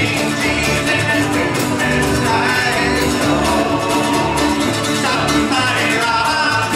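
A bluegrass band playing live: fiddle, mandolin, banjo, acoustic guitars and upright bass together, over a steady bass beat.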